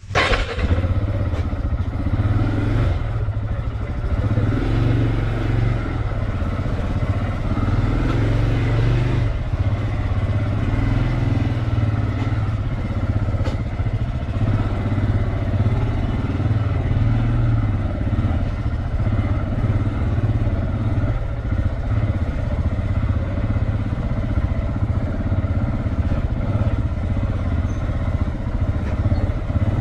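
Motorcycle engine running steadily while riding, a continuous low drone with small rises and falls in throttle.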